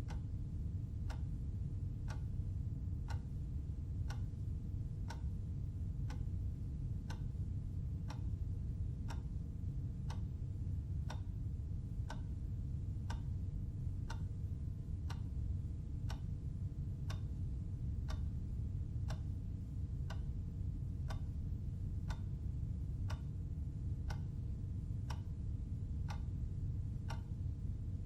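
Clock ticking about once a second, with even, sharp ticks over a steady low hum.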